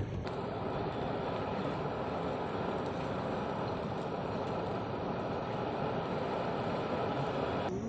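Hand-cranked blower whirring steadily as it fans a charcoal fire; the sound cuts off abruptly near the end.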